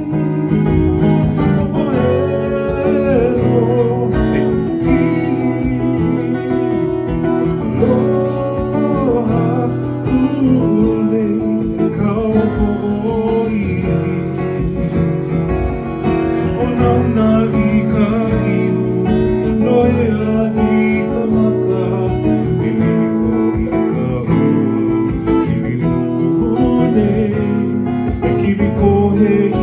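A Hawaiian song: a voice singing over a strummed stringed accompaniment, continuous and steady in level.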